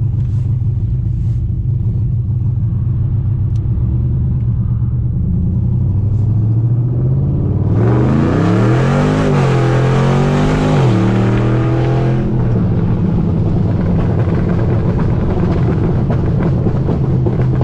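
Built V8 car engine heard from inside the cabin, cruising steadily, then about seven and a half seconds in going to full throttle: the engine note climbs, drops at a gear shift and climbs again for about four seconds, then the driver lifts off and it settles back to a steady cruise.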